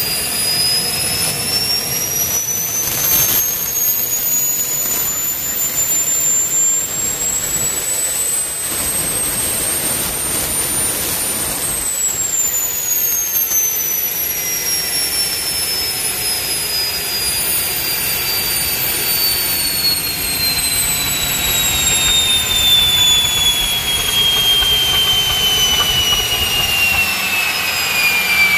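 Small gas turbine from an aircraft generator running, a loud jet rush with a high whine. The whine climbs in pitch over the first ten seconds or so, then winds steadily down through the rest as the turbine slows.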